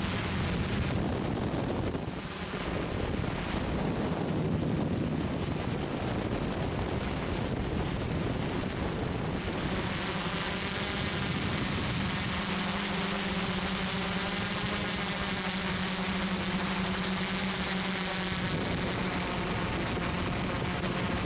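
Model FPV aircraft's motor and propeller running steadily, heard from the onboard camera, a constant drone whose tone changes about halfway through.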